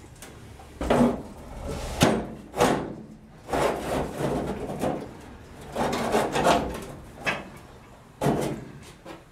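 Steel front panel of a 1949 GMC pickup bed being tilted and worked down into place, giving an uneven run of scrapes and knocks against the bed.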